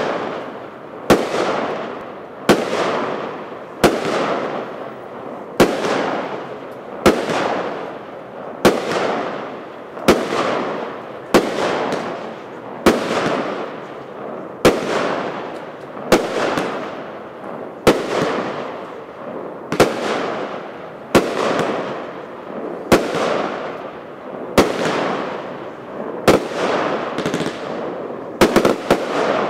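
Bonfireworks Wodka Blue firework firing aerial shots one after another, a sharp bang about every one and a half seconds, each trailing off over about a second. Near the end several shots go off in quick succession.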